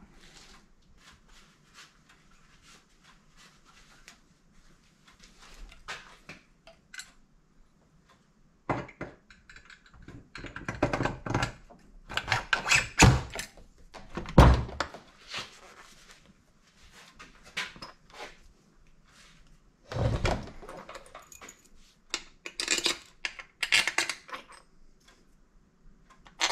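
Aluminium engine crankcase halves and bolts being handled and set together: scattered light clicks, then bursts of clunks and metal knocks from about 9 to 15 seconds in, again around 20 seconds, and about 23 seconds in.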